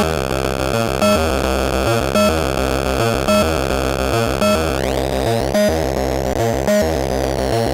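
Plankton Electronics Ants! synthesizer played through the SPICE distortion/saturation unit: a gritty, sequenced pattern of notes that repeats about once a second, with the upper buzz sweeping up about five seconds in.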